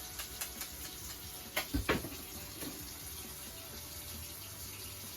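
Water running steadily from a tap, with a few light clicks and two knocks, like items set down in the sink, a little under two seconds in.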